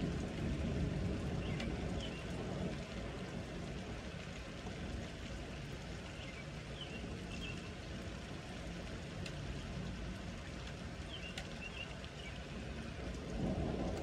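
Steady heavy rain in a thunderstorm, with a low rumble that fades over the first few seconds and builds again near the end.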